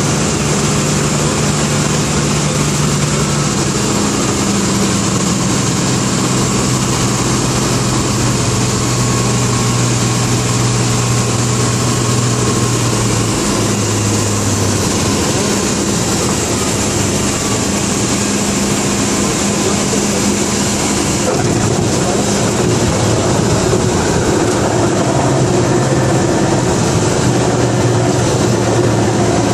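Dornier Do 27's piston engine and propeller heard from inside the cockpit, a steady loud drone. The engine note steps lower a few seconds in and shifts again around halfway through.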